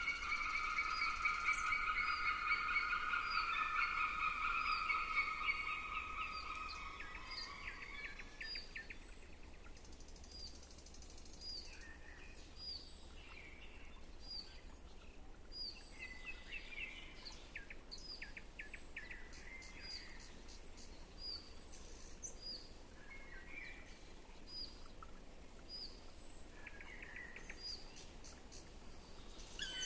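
Wild birds calling and singing. A louder, sustained warbling trill fills the first several seconds and fades out. A short, high call repeats about once a second throughout, with other brief song phrases mixed in.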